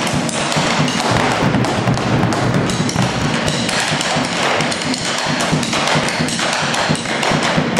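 Bombo legüero drums beaten with sticks in rapid, rhythmic strokes, with drum thumps and sharper wooden taps.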